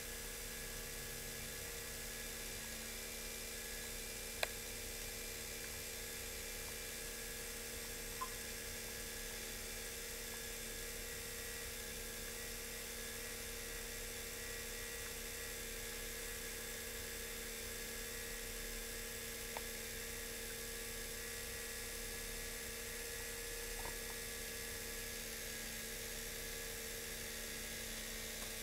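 Steady electric whir and hum of Märklin HO model trains running on the layout, with a few sharp clicks, the loudest about four seconds in.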